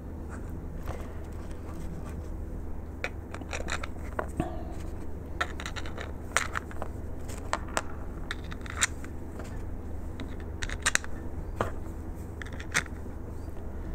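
Irregular small clicks and light scrapes of hard plastic parts and screws being handled as the cover is fitted back onto a Hornady case prep trio, over a steady low hum.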